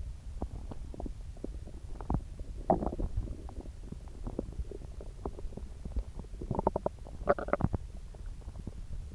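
Upset stomach growling and gurgling: a low rumble throughout, dotted with small pops, and louder runs of quick bubbling gurgles about three seconds in and again around seven seconds.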